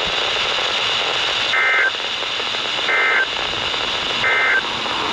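Emergency Alert System SAME data signal: three short, identical warbling bursts about a second apart, with the short bursts typical of the end-of-message code that closes an alert, over steady radio hiss.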